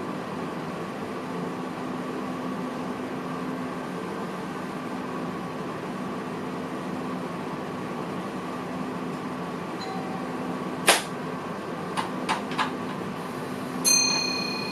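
Steady hum inside the driver's cab of a VIRM double-deck electric train. About 11 seconds in there is a sharp click, then three lighter clicks a second later. Near the end a click is followed by a ringing tone that fades.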